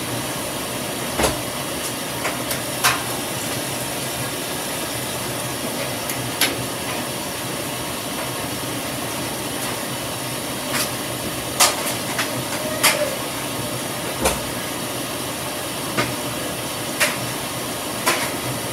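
Top-loading washing machine filling: water running into the tub with a steady hiss. Scattered sharp ticks sound every second or few seconds.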